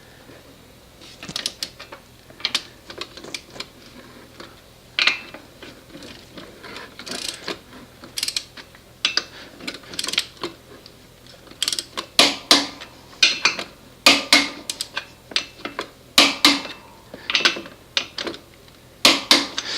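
Click-type torque wrench ratcheting on a mower wheel's lug nuts: a series of sharp ratchet clicks, sparse at first and then in louder, quicker clusters, as the nuts are torqued to 85 pound-feet.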